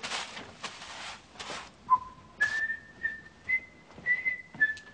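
A person whistling a slow phrase of held notes, with a few short bursts of rustling just before it.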